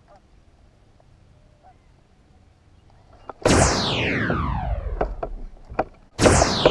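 Baitcasting reel spool whirring as line pays out, its whine falling steadily in pitch as the spool slows, with a few sharp clicks after it. It starts about halfway in, and a second whir starts near the end.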